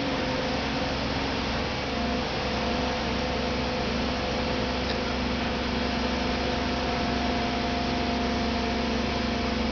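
Engine of a yellow steel boat-lifting frame running steadily, a constant hum over a broad noisy rush.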